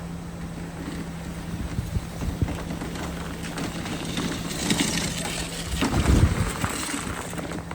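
Snow blower running with a steady hum, with louder surges of noise about four and a half and six seconds in.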